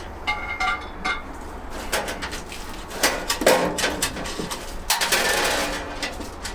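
Steel tool-cart parts clanking and clinking as they are handled and fitted together, with a brief metallic ring near the start and a longer scraping rattle about five seconds in.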